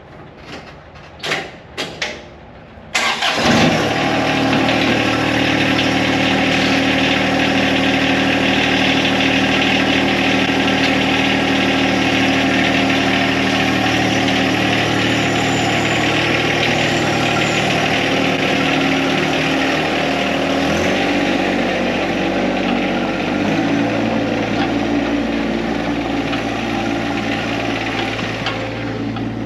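A compact tractor's diesel engine is cranked over with a few short knocks and starts about three seconds in, then runs steadily. About two-thirds of the way through, the engine speed drops and it settles at a lower idle.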